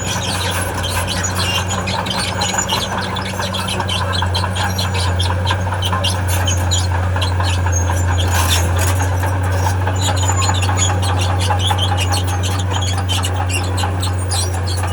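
Crawler bulldozer's diesel engine running steadily, with high-pitched squealing and rapid clanking from its steel tracks.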